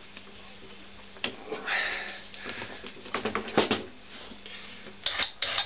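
Scattered short clicks, scrapes and hissy rustles of hands and tools working the coolant water pipe loose from a Honda CX500 engine, with two short hissy bursts near the end.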